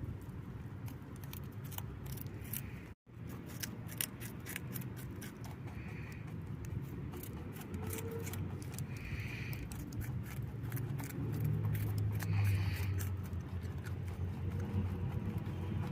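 A rabbit chewing raw carrot and cucumber: a quick run of small crunching clicks over a low steady hum. The sound cuts out briefly about three seconds in.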